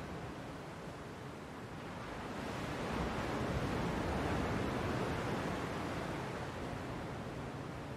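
Ocean surf: a steady wash of waves that swells a few seconds in and eases off again.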